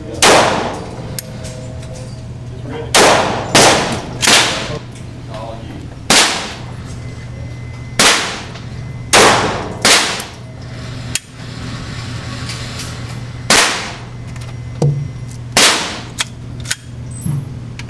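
A string of about a dozen pistol shots at irregular intervals, some close together and some several seconds apart, each with a short ringing echo. A steady low hum runs underneath.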